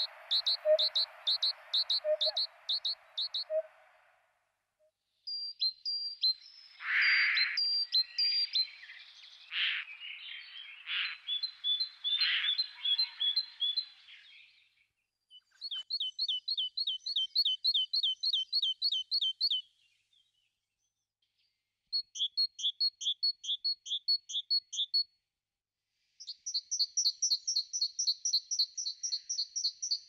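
Wild songbirds singing: runs of rapid, evenly repeated high notes, a few seconds each with short pauses between, the notes quickening in the last run. A stretch of harsher, noisier calls comes in between about a quarter and half way through.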